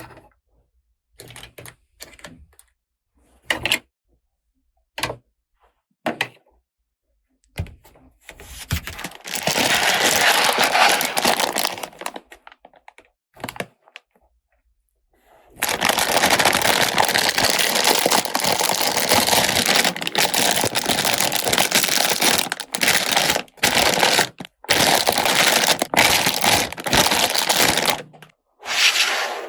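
Handling of plastic toy pieces and their packaging: a series of sharp clicks and taps, then two long stretches of continuous rustling.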